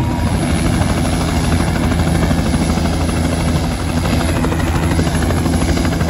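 Helicopter turbine and main rotor running steadily on the ground after start-up, before lift-off, with a fast, even rotor beat.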